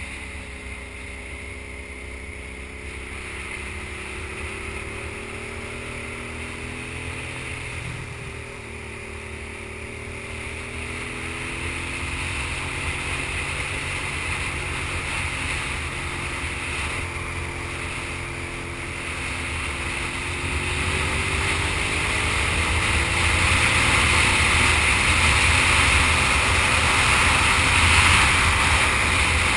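Sport motorcycle's engine running while ridden through tight bends, its pitch gliding up and down with the throttle. Wind noise over it grows louder through the second half as the bike picks up speed.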